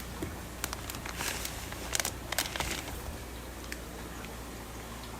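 Plastic fish-shipping bags being handled: a cluster of short crinkles and clicks in the first three seconds, over a steady low hum.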